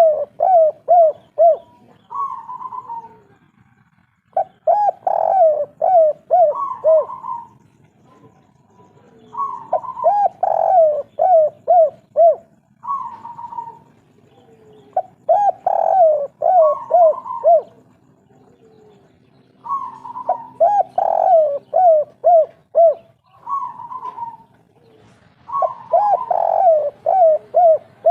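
Spotted dove (derkuku) singing its 'kuk 3' song. The same cooing phrase repeats about every five seconds: a clear coo, a quick run of five or six short rolling notes, and a closing coo.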